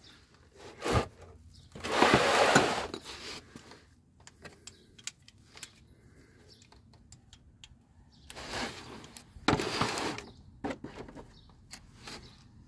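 Metal hand tools working on the oil cooler water pipe fittings under a Subaru Tribeca: scattered clicks, with two loud bursts of rapid metallic clicking and rattling, one about two seconds in and one about nine seconds in.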